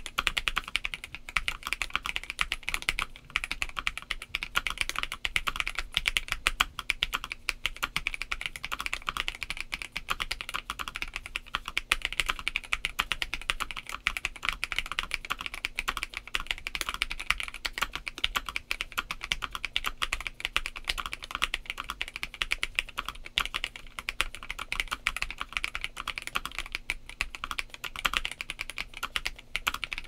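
Continuous fast typing on a Monsgeek M2 mechanical keyboard with a polycarbonate plate, Domikey Astronaut linear switches and Domikey Fading Cherry-profile keycaps: a dense, unbroken stream of keystrokes.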